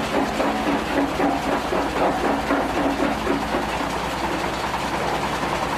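Stone crusher machine running: a steady engine hum under a fast, even mechanical clatter.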